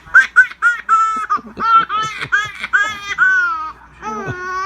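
Six-month-old baby girl laughing in a rapid string of short, high-pitched bursts, several a second, ending in a longer drawn-out laugh about three and a half seconds in.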